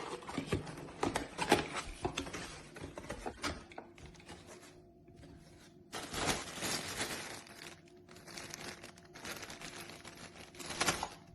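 Compact portable electric sewing machine running, its needle mechanism clattering over a faint steady motor hum, in several short stretches that start and stop abruptly.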